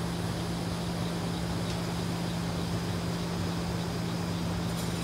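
Steady hum of water-treatment plant machinery with an even rushing hiss, unchanging throughout.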